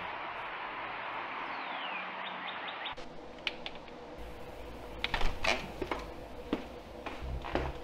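Steady outdoor background hiss with a few short bird chirps, then an abrupt change to indoor sound: a back door opening and a string of clicks, knocks and footsteps as a man comes inside, with low thuds near the end.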